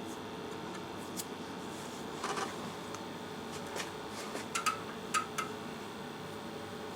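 Tektronix TDS 784A oscilloscope powering up, its fan and power supply giving a steady hum, with a handful of short sharp clicks as it boots.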